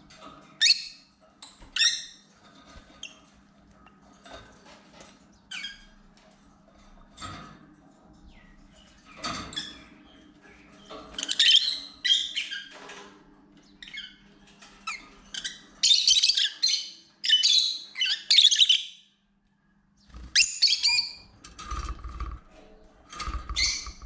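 Lovebirds calling: short, sharp, high chirps and squawks, scattered at first, then coming in quick, loud runs about halfway through and again a few seconds later.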